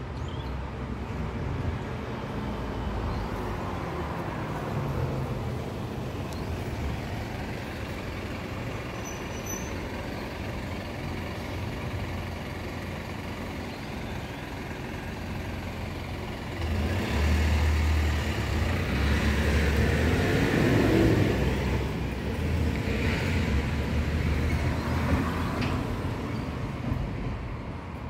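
Road traffic noise. It gets louder about two-thirds of the way in for several seconds with a low rumble, as a heavy vehicle passes, then eases off.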